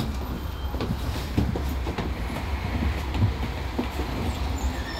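Steady low rumble inside a moving bus, with scattered rattles and clicks from the vehicle.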